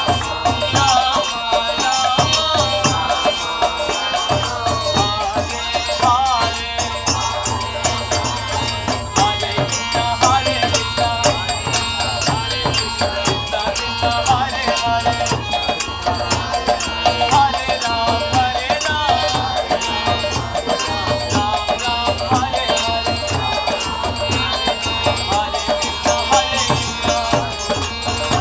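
Devotional kirtan: a man singing a chant over a harmonium, with small hand cymbals (karatals) clashing in a fast steady rhythm and a hand drum keeping a regular low beat.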